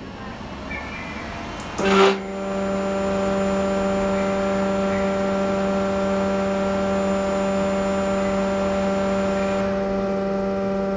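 CNC stepper motor driven at a steady step rate, making a steady pitched hum that starts with a knock about two seconds in and cuts off near the end.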